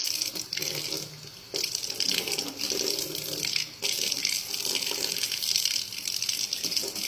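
Water running steadily, like a tap pouring into a sink, with a brief dip about a second in.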